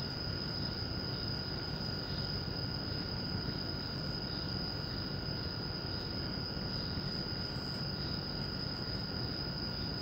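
Steady high-pitched insect chirring over a low, even background hiss, unchanging throughout.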